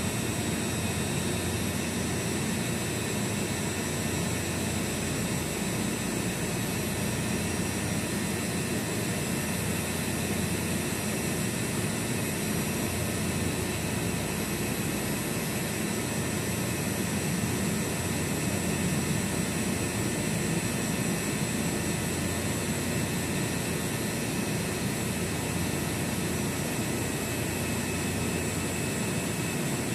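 Centrifugal chiller compressor and motor running steadily under load: a constant rushing hum with several steady high-pitched whines over it.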